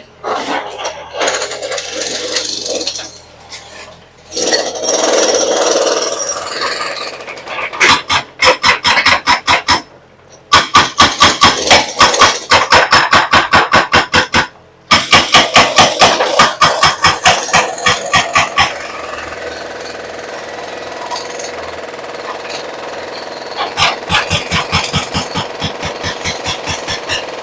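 Excavator-mounted hydraulic breaker hammering concrete in rapid, loud, evenly spaced strikes. It stops abruptly and starts again several times, and the strikes are lighter in the last third.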